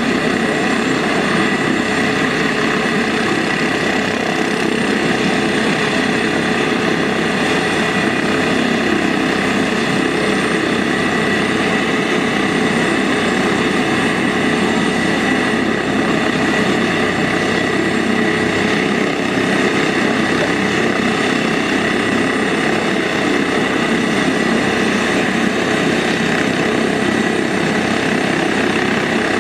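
Airbus helicopter with a ducted tail rotor running on the ground, rotors turning: a loud, steady rotor and turbine sound with several high whining tones.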